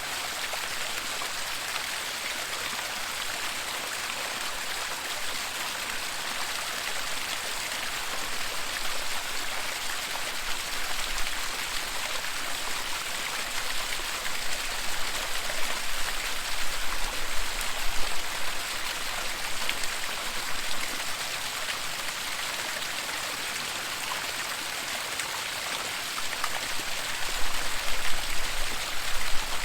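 Waterfall water rushing in a steady hiss. It swells louder with a low rumble about halfway through and again near the end.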